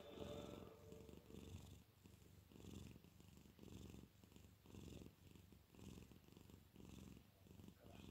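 Calico cat purring, a quiet low rumble that swells and fades with each breath.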